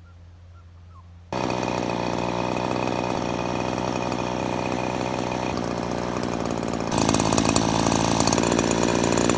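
Petrol brush cutter running at a steady pitch, coming in about a second in after a faint low hum and getting louder about seven seconds in.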